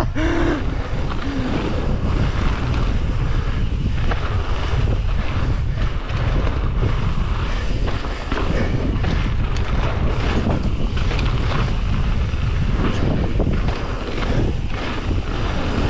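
Wind buffeting a bike-mounted action camera's microphone at speed, over mountain bike tyres rolling on a gravel trail and the bike clattering over bumps.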